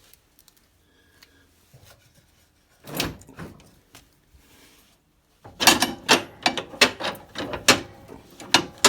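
A 54-inch metal mower deck being slid forward under a garden tractor to free it from its front support. There is one clatter of knocks about three seconds in, then about three seconds of repeated clanks and scraping near the end.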